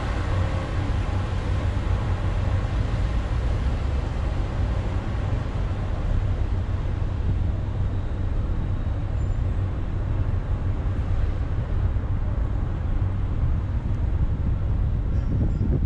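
Steady low rumble of a diesel semi-truck engine running as the tractor-trailer maneuvers.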